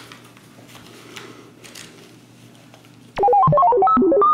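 Quiet room tone with a faint steady hum, then, about three seconds in, a loud, fast electronic melody of quick stepped notes that starts abruptly, like a ringtone.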